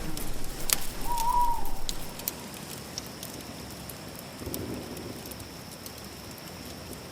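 Campfire crackling, with sharp irregular pops and snaps over a soft hiss. A short pitched bird call sounds about a second in, and a faint steady high tone runs underneath.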